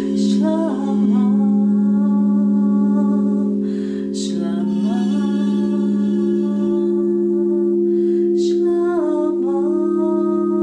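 Crystal singing bowls ring with steady, overlapping sustained tones while a woman sings long held notes over them. Three times she draws a breath, and each new note slides down before settling and holding.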